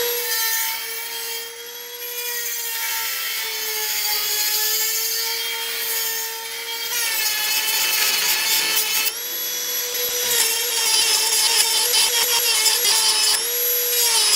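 High-speed rotary tool with a small abrasive cut-off disc grinding the rusted heads of seized slotted bolts flat, throwing sparks. It is a steady high whine under a grinding hiss that grows louder about halfway through. The pitch dips briefly near the end as the disc bites.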